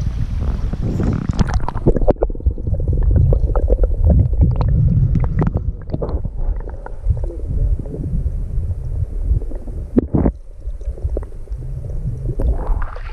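Creek water heard with the microphone under the surface: a muffled low rumble with gurgling, knocks and pops, the higher sounds cut off. About two seconds in the open rush of the shallow stream gives way to this, and it opens out into the stream's rush again at the very end.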